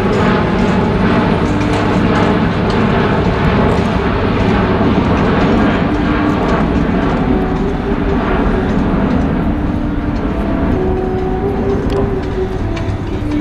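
Rolls-Royce Trent XWB turbofans of an Airbus A350 in a display flyover, a loud, steady jet roar with no let-up. Orchestral music from the air show loudspeakers shows through with held notes near the end.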